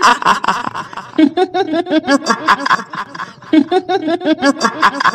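Kuntilanak ghost laugh: a woman's high-pitched cackling "hihihi", in three runs of quick pulsed laughs.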